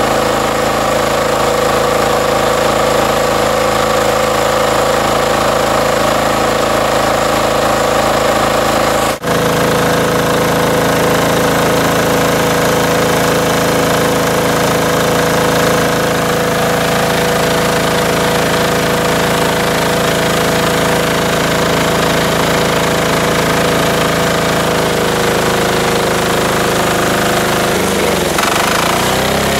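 Small single-cylinder air-cooled diesel engine on a log splitter running with a steady clatter, freshly cold-started. Near the end its pitch drops as it is throttled back toward idle.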